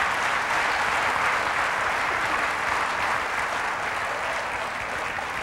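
Audience applauding: a dense, steady wash of clapping that slowly begins to fade near the end.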